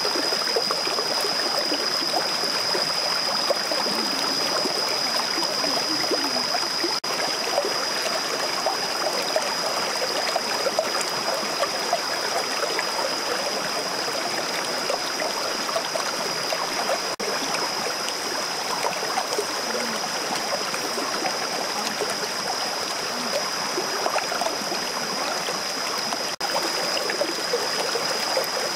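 Shallow rocky stream flowing and trickling over stones, a steady rush of water, with a steady high-pitched whine above it.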